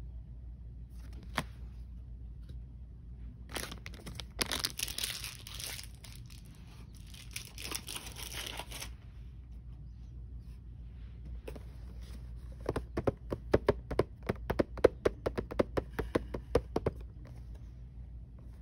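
Thin blind-bag packaging crinkling and tearing for about five seconds, then a fast run of sharp taps, about five a second, lasting several seconds.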